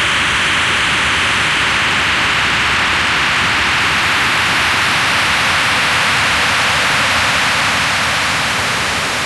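Steady harsh static hiss, a wall of electronic noise from a noise/industrial music track, strongest in the upper middle range. It eases off slightly near the end, with a faint low hum entering partway through.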